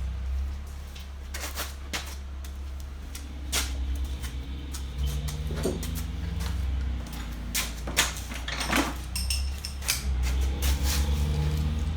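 Scattered knocks, clicks and clatter of hand tools on metal parts, over a steady low hum.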